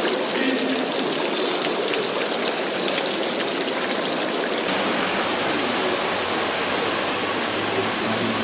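Water splashing and running in an ornamental marble fountain, a steady rushing hiss that starts suddenly.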